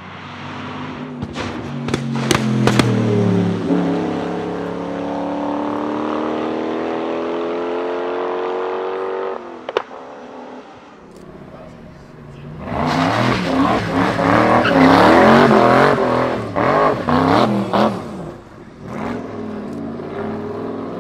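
Noble M600 Speedster's Yamaha-derived 4.4-litre twin-turbo V8 at full throttle. A few sharp bangs come from the exhaust early on, then the engine pitch climbs steadily as the car pulls away. Later comes a louder burst of hard revving with a rapid string of pops and bangs, from what the owner believes is a sort of anti-lag system.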